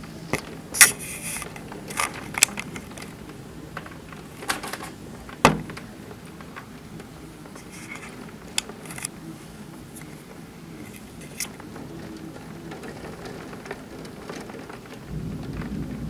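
Scattered raindrops tapping close to the microphone: irregular sharp ticks, the loudest about a second in and midway, over a steady low background of a rainstorm. Near the end a low rumble grows louder.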